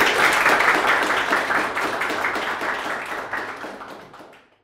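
An audience applauding, many hands clapping at once; the applause dies away near the end.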